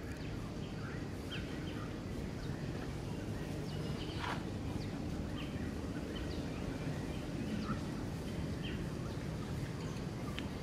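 Outdoor ambience: a steady low background rumble with scattered short, high chirps, one a little stronger about four seconds in.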